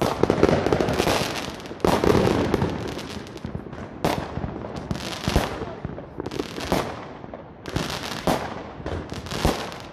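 Street fireworks going off: repeated bangs and firecracker crackle, with a fresh burst every second or two.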